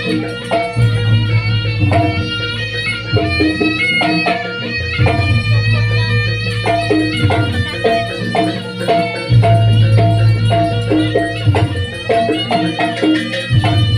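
Live jaranan campursari music: a melodic lead line over hand drums and a held low bass.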